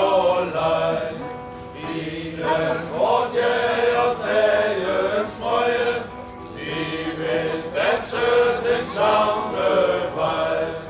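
Men's choir singing in several parts, in phrases with short breaths between them.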